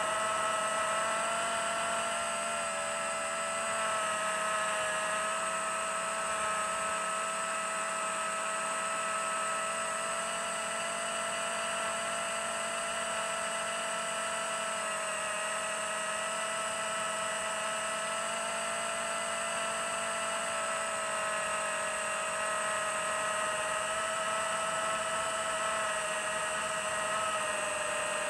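FPV quadcopter's electric motors and propellers whining steadily as it flies, with small shifts in pitch.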